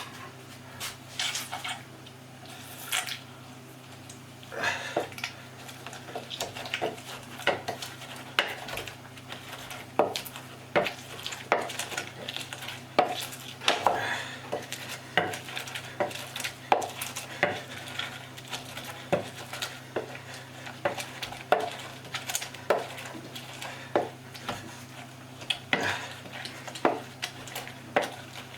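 Irregular knocks and scrapes of a utensil as roasted green chillies, garlic, tomato and fermented dried fish are ground together by hand into a chutney, about one knock a second, over a steady low hum.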